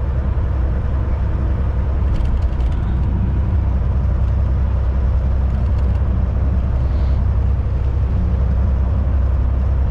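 Semi truck's diesel engine running, heard from inside the cab as a steady low drone.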